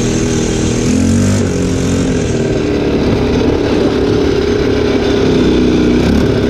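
ATV engine running steadily as the quad is ridden at low speed, with a brief change in pitch about a second and a half in.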